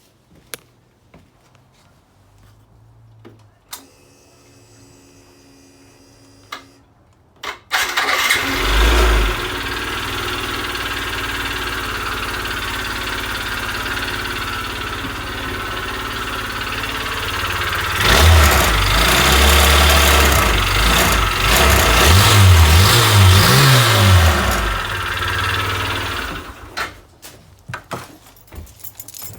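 Yamaha Gear scooter engine started about eight seconds in after a few clicks. It runs steadily, is revved up and down several times, then is switched off near the end. The noise it makes is from a failing crankshaft bearing.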